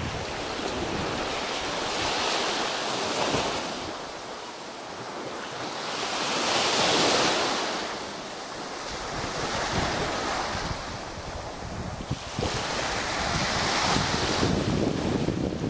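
Small sea waves breaking and washing up a sandy beach, surging and fading every few seconds and loudest about seven seconds in. Wind buffets the microphone with a low rumble at the start and again in the last few seconds.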